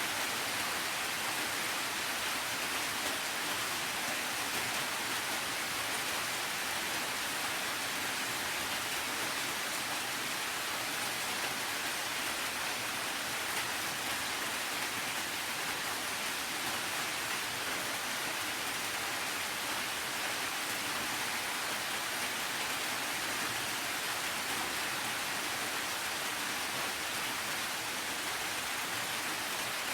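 Steady rainfall, an even hiss of drops with no distinct individual drips or changes.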